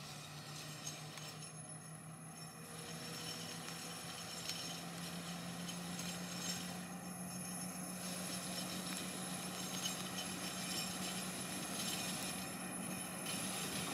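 Alishan Forest Railway work train's diesel locomotive running with a steady low engine hum that rises slightly in pitch about five seconds in and grows gradually louder as the train gets under way again after its stop.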